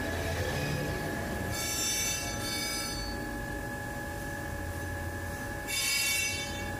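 Metal lathe running with a steady whine, while the cutting tool squeals against the workpiece twice: a high, shrill squeal of about a second, about a second and a half in, and again near the end.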